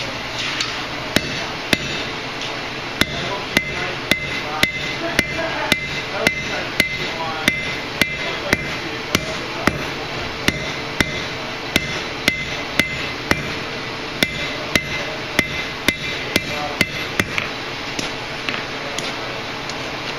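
Hand hammer striking a glowing steel bar on an anvil in a steady rhythm of about two blows a second, tapering the bar's end into a scarf for a forge weld. The blows break off briefly about two seconds in and thin out to a few scattered strikes about three seconds before the end.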